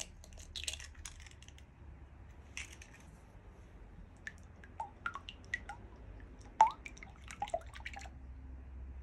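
An egg is broken open into a glass bowl and then beaten with a wooden-handled knife. Short clicks and wet squishing come first, then irregular tapping with brief ringing pings as the blade strikes the glass bowl, the loudest tap about two-thirds of the way through.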